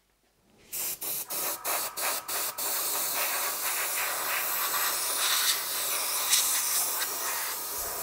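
Airbrush spraying: a string of short spurts of air, then a steady hiss lasting several seconds.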